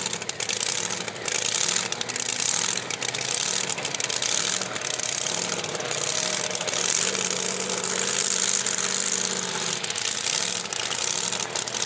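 Engine of a tractor-pulling vehicle running loud during a test pull. Its pitch wavers up and down, then holds steadier about seven seconds in.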